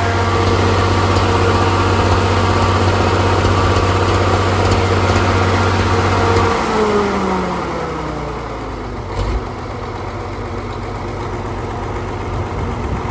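Caterpillar D6B bulldozer's diesel engine running steadily, then falling in pitch about halfway through as it slows to a lower idle. A single knock comes shortly after.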